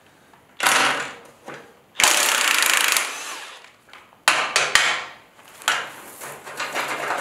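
Cordless power driver run in short bursts, the longest a steady second-long run about two seconds in, unfastening bolts on a steel boat trailer frame, with sharp metal clicks between runs.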